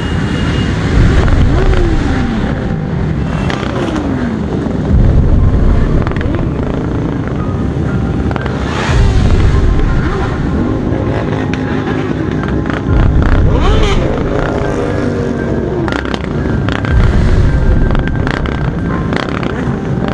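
Motorcycle engines revving in a slow-moving group, revs surging up and dropping away in repeated blips about every four seconds, with other bikes running close by.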